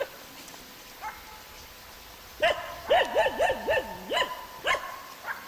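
A dog barking: a couple of faint single barks, then a rapid string of louder barks from about halfway in.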